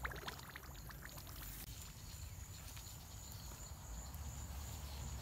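Faint outdoor ambience: a steady high-pitched insect drone, with a few soft steps in wet mud and grass in the first second.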